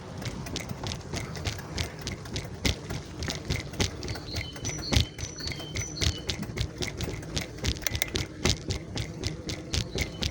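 Bicycle rattling and clicking irregularly as it is ridden, many sharp knocks over a low rumble; the rider wonders whether it needs adjusting or lubricating.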